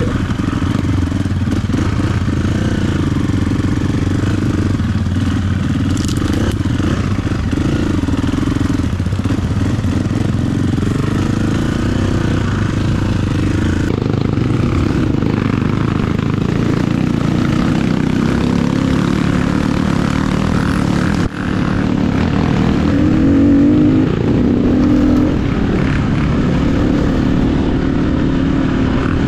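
KTM EXC-F 350's single-cylinder four-stroke engine, fitted with an FMF exhaust tip, running steadily while the bike is ridden off-road. The engine note drops briefly about two-thirds of the way in, then revs higher for a couple of seconds.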